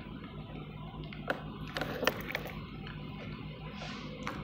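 Faint, steady low hum of a distant diesel locomotive, with scattered sharp clicks and ticks.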